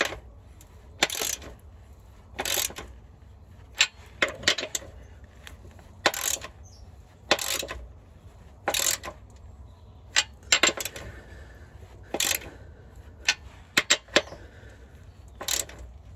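Hand ratchet with a 13 mm socket tightening the nuts on a new exhaust clamp sleeve: short rasping clicks on each back-swing, about once every second or so, with sharp metallic clinks in between.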